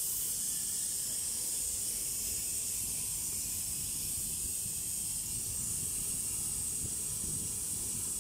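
Steady hiss of compressed air at a plasma cutter's air supply, with a low rumble underneath.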